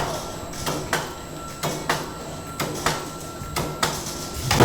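A stamping press with a punching and shearing die working metal strip: sharp metallic strikes in pairs, repeating about once a second over a steady machine hum. There is a louder burst near the end.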